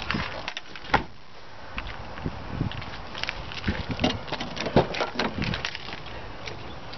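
A 2001 Nissan Pathfinder's door being opened, with keys jangling in hand: one sharp click about a second in, then a run of short clicks and knocks from about three to six seconds in as the handle is pulled and the door swings open.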